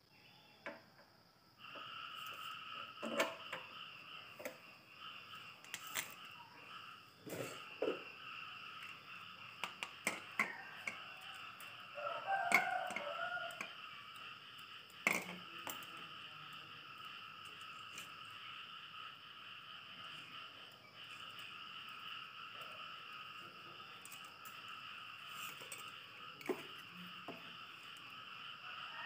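IZUMI inverter stick welder switched on about two seconds in, then running with a steady high hum from its cooling fan and electronics, while its cables, electrode holder and ground clamp are handled with scattered clicks and knocks.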